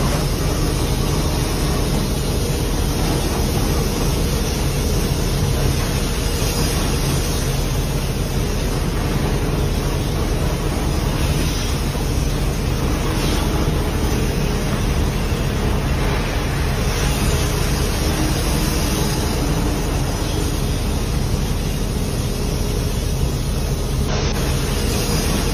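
Heavy mining machinery running steadily as a P&H 4100 XPC electric rope shovel swings and digs its dipper into a rock pile beside a haul truck: a constant low machine hum over an even rumble.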